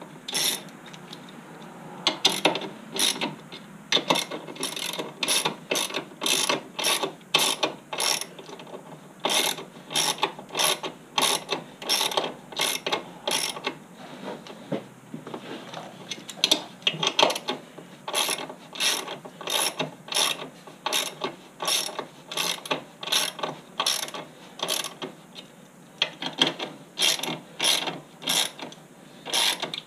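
Hand socket ratchet clicking as it is swung back and forth, about two strokes a second with a brief lull partway through, turning a nut on the plow mount's U-bolt under an ATV skid plate.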